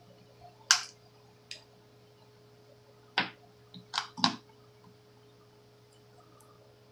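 Sharp clicks and pops at uneven intervals, two of them close together, made while soldering over a carburetor jet, over a faint steady hum.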